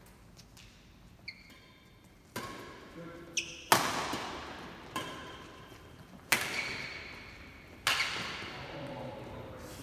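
Badminton rally: rackets striking a shuttlecock about five times, each sharp crack echoing around a large hall, with short high squeaks of shoes on the court floor between shots.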